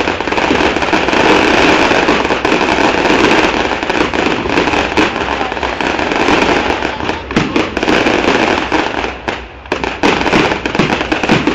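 Firecrackers going off in a rapid, continuous crackle for about nine seconds, then thinning to scattered separate bangs near the end.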